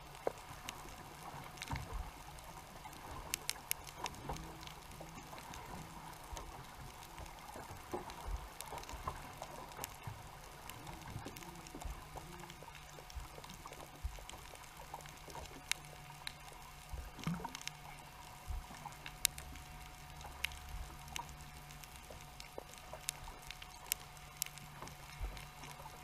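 Underwater ambience picked up through a camera's waterproof housing: a faint steady hum with scattered sharp clicks and crackles.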